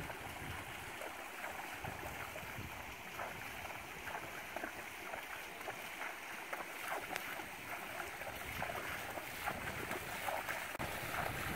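A mustang walking through shallow river water, its hooves splashing at an uneven walking pace over a steady rushing noise.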